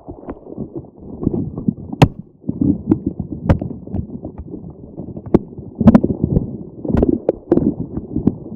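A grape-ball squeeze toy being squeezed and kneaded close to the microphone: dense, muffled squishing with scattered sharp clicks.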